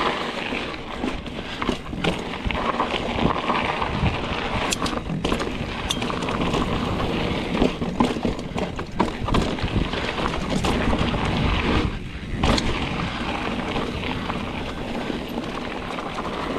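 Mountain bike riding fast down a dry dirt trail: a steady rush of tyres on loose dirt and wind across the microphone, broken by frequent sharp clicks and clatters as the bike hits rocks and roots.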